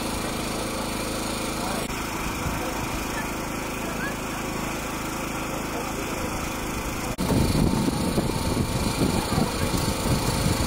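Small petrol engine running steadily at an even pitch, with two abrupt breaks in the sound. About seven seconds in, a louder, irregular low rumble joins it.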